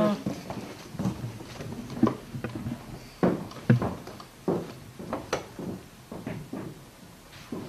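About a dozen irregular knocks and thumps, the loudest a little over three seconds in.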